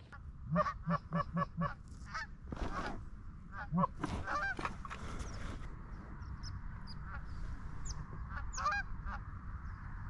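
Goose honks and clucks: a quick run of about four short clucks in the first two seconds, then scattered honks through the rest.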